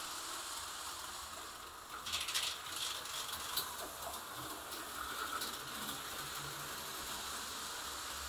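HO-scale slot car running on a plastic track, with a burst of rattling clicks about two seconds in.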